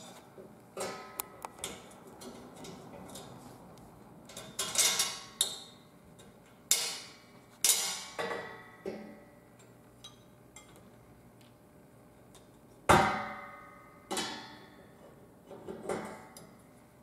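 Scattered metal clinks and clanks of steel tree-stand frame parts being handled as a bolt with nylon washers and a nut is fitted through the foot-platform brace by hand. A sharp knock with a short ringing tail about three-quarters of the way through is the loudest.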